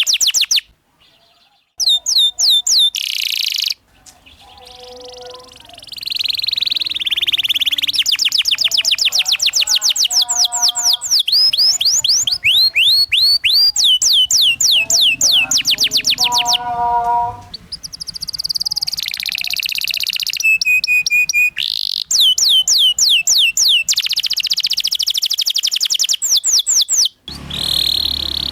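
Domestic canary singing rolling song: rapid runs of repeated high, downward-sweeping notes, phrase after phrase, broken by a few short abrupt gaps.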